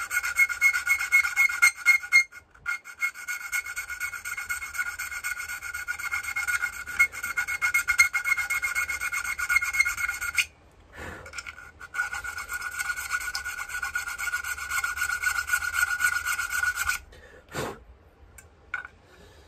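Small needle file rasping rapidly back and forth in a square hole in an earthing blank plate held in a vise, taking out a little material so the fitting sits flush. The strokes pause briefly twice and stop a couple of seconds before the end, followed by a few faint clicks.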